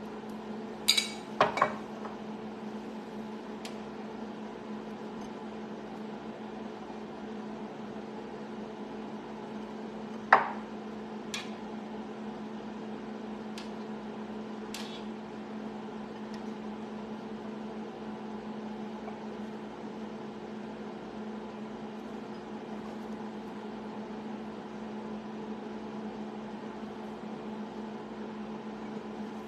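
A steady low electrical hum runs throughout, with a few sharp clinks of a metal spoon against a glass bowl and a metal baking tray, the loudest about ten seconds in.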